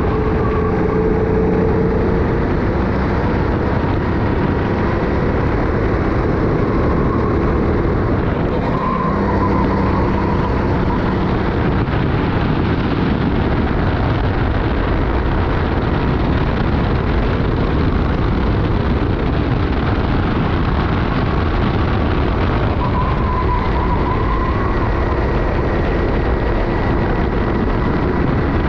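Sodi racing kart's engine running at race speed, its pitch dropping and rising with the throttle through the corners about a third of the way in and again near the end, over heavy wind rush on the helmet chin-mounted camera.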